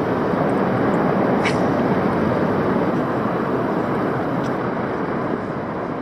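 Shallow river water running over rocks close to the microphone: a steady, even rush, with two faint ticks.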